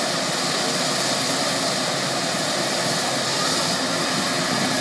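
Eurocopter EC135 police helicopter running on the ground before lift-off: steady turbine whine and main-rotor and Fenestron noise at a constant level.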